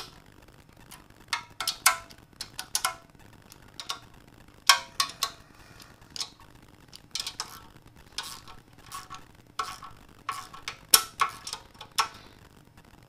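Hand ratchet on a long socket extension clicking in short, irregular bursts as oil pan bolts are run down, with a few sharper metallic clicks near the end.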